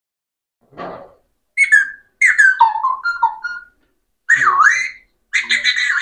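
Alexandrine parakeet whistling. A short breathy puff about a second in is followed by a string of whistled notes gliding down in pitch, then a whistle that dips and rises again. Near the end comes a quick burst of rapid pulsed chatter.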